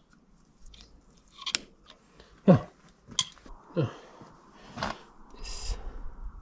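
Metal parts of a slurry tanker vacuum pump being handled and fitted back together by hand: a handful of sharp clicks and knocks, two of them with a brief falling squeak.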